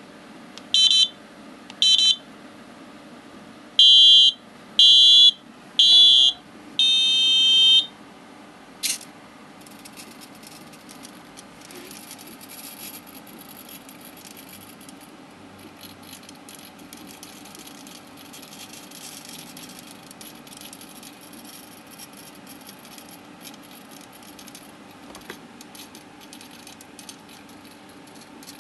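Electronic piezo buzzer on a homemade microcontroller circuit beeping at a high pitch: two short beeps a second apart, three longer beeps, then a longer beep of a different tone, followed by a single click. After that comes faint scratching and rubbing as the wooden device is handled.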